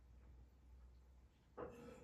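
Near silence: quiet room tone with a low steady hum. Near the end, a short, unidentified noise lasting under half a second.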